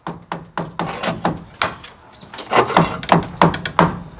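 Small sledgehammer striking a wooden post again and again, about three sharp knocks a second, with a brief pause about two seconds in.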